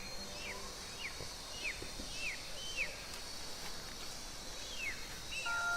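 A bird calling over and over, a short falling whistle about every half second, over faint outdoor hiss. Soft chime-like music notes come in near the end.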